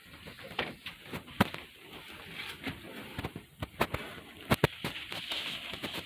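Fabric car cover rustling and crinkling as it is dragged off a car, with irregular sharp crackles and snaps from the creased cloth.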